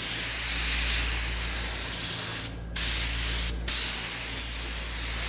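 Spray gun hissing as it sprays wood dye onto pine cabinet parts. The spray stops briefly about two and a half seconds in and again a second later, with a steady low hum underneath.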